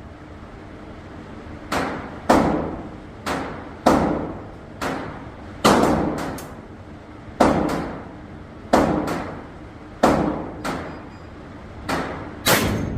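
Gunshots: about fourteen shots at uneven spacing, some in quick pairs, each trailing off in a short echo.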